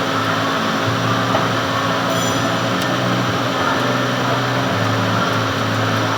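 Metal lathe running with a steady low hum and even machine noise.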